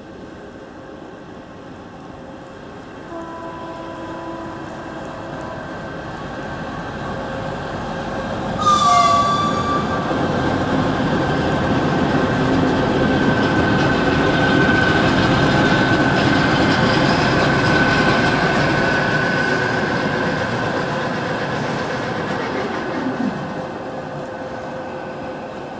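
A 2TE25KM two-section diesel locomotive arriving and passing close by. About nine seconds in it gives a short horn blast. Then the engine and wheel noise swells to its loudest as it passes, with a steady high whine on top, and dies away near the end.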